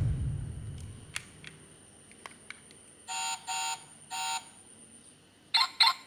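Background music fading out, then electronic beeps: three short beeps about half a second apart, and two quicker ones near the end. A few faint clicks fall in the quiet stretch between.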